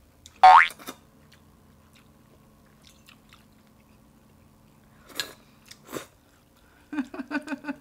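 Wide starch noodles slurped and chewed from a bowl, two short sucking slurps a little after the middle. A short high-pitched vocal squeal about half a second in is the loudest sound, and a quick run of short vocal pulses comes near the end.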